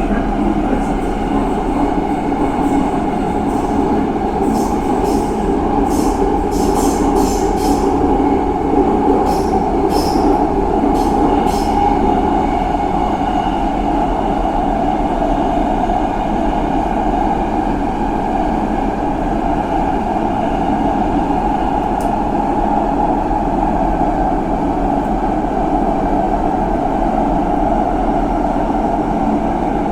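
A train running along the track with a steady, loud rumble. Between about 4 and 12 seconds in comes a run of short, high-pitched squeaks or clicks.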